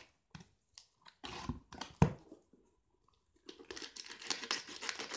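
Packing tape on a cardboard box being slit with a utility knife and pulled, with cardboard knocks and rustles in the first two seconds, a short pause, then a steady run of scratchy tape tearing.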